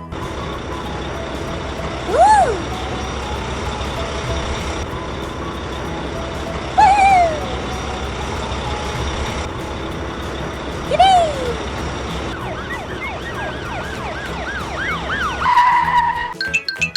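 Steady low engine rumble of an animated truck. Three short chirps rise and fall in pitch a few seconds apart, and a quick flurry of chirps comes near the end.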